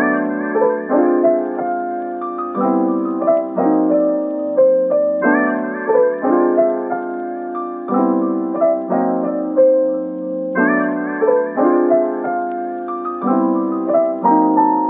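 Background music: a piano-like keyboard playing a gentle repeating pattern of notes, with a fresh chord struck about once a second.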